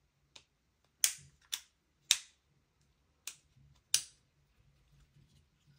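Sharp hard-plastic clicks and snaps from handling the action camera and its accessories: about six, unevenly spaced, the loudest about one second and two seconds in.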